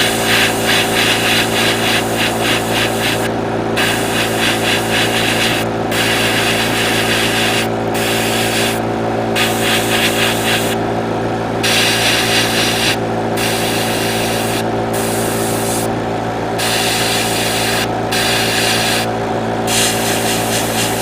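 Airbrush spraying paint, its hiss stopping for a moment and starting again about ten times as the trigger is released and pressed, over the steady hum of its air compressor.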